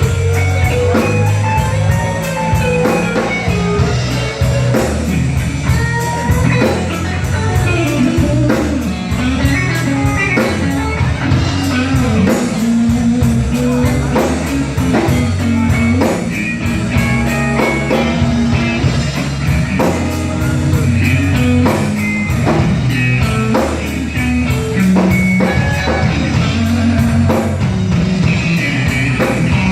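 Live blues trio playing a slow blues: electric guitar playing lead lines with bent, sliding notes over bass guitar and drum kit.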